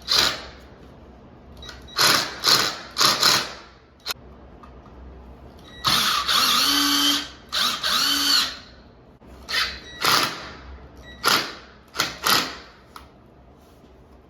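Cordless drill driving T30 Torx screws through a toilet flange into the floor, in a series of short trigger pulls. Two longer runs in the middle rise and fall in pitch as the motor speeds up and slows. The short pulls keep the screws from being over-tightened, which would crack the flange.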